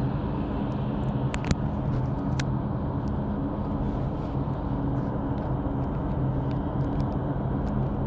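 A few small sharp metallic clicks from split ring pliers and a steel split ring being worked, two close together about a second and a half in and one more near two and a half seconds, over a steady low hum and rush of background noise.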